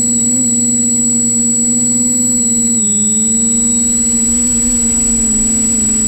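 Multirotor drone's motors and propellers humming in steady flight, a pitched drone that dips about three seconds in as the throttle eases, then settles back.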